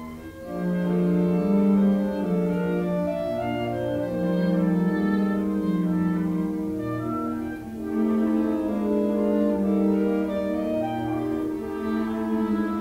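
Solo cello playing a slow melody in long held notes over sustained concert-band accompaniment.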